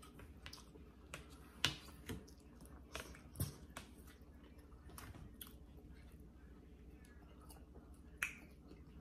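Quiet chewing of a soft egg-and-tortilla pie, with a handful of scattered sharp clicks of forks against plastic plates.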